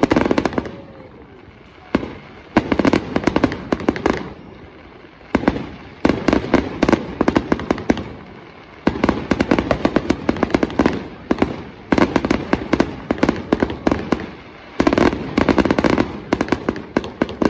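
Fireworks display: aerial bursts going off in rapid volleys of bangs and crackles, coming in clusters of a few seconds each with short lulls between.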